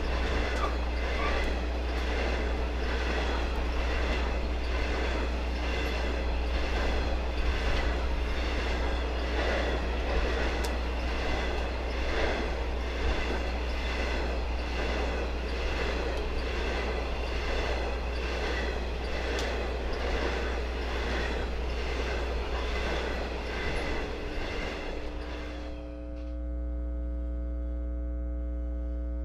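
Coal hopper cars of an electric freight train rolling past close by, their wheels clattering in an even repeating rhythm. About 26 s in this cuts off suddenly and a steady hum takes over.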